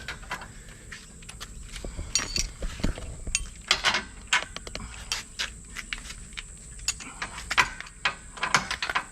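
Hand tools working the steel mounting bolts of a caravan hitch: a ratchet and spanners clicking and clinking on metal in short, irregular bursts.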